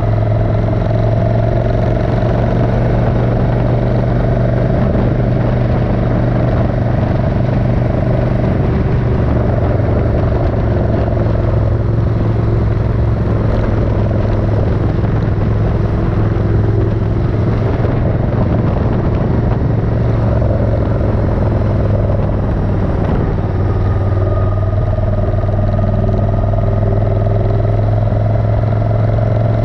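Suzuki Intruder 1400's V-twin engine running at a steady pitch while the motorcycle is being ridden at an even speed.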